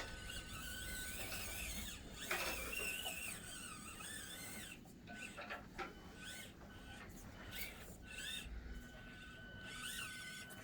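Axial SCX24 micro crawler's small electric motor giving a faint high whine that cuts in and out as it is driven in short bursts. A brief wavering high squeal comes about two seconds in.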